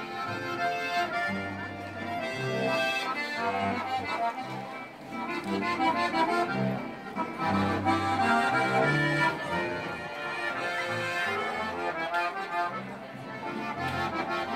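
Traditional Alpine folk music from a live trio: a button accordion carries the melody over double bass and acoustic guitar.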